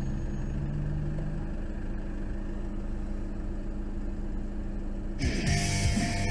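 Steady hum of a car's idling engine heard from inside the stationary car. About five seconds in, rock music with electric guitar suddenly starts.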